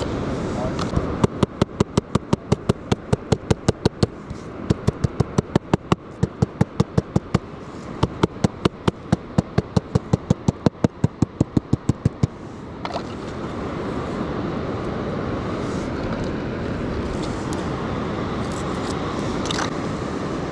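Three runs of sharp, evenly spaced clicking, about five clicks a second, over steady surf noise. The clicking stops about twelve seconds in, and the surf noise swells a little after it.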